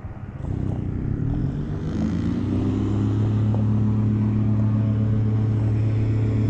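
A motor engine comes up about half a second in, rising in pitch for a couple of seconds, then runs at a steady pitch, loud and even.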